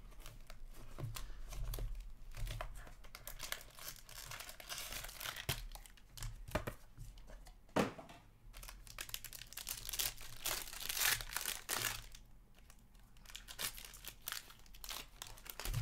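Foil wrapper of a hockey card pack crinkling and tearing as it is opened by hand, in a long run of crackly rustles, with a sharp tap about eight seconds in.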